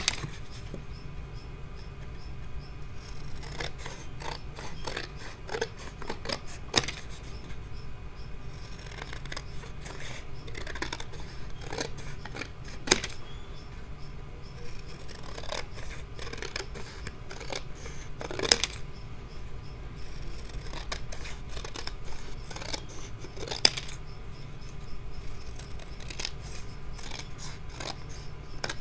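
Scissors cutting a watercolor painting into strips: an irregular run of snips and paper rustle, with a few sharper clicks spread through.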